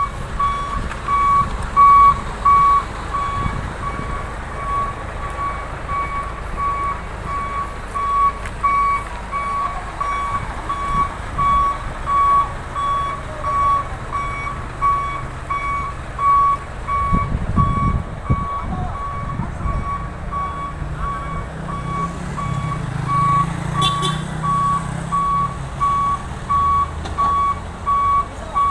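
A heavy truck's reversing alarm beeping steadily, about two beeps a second, as the truck backs up. Under it a diesel truck engine runs, revving up about 17 seconds in and again around 22 seconds in.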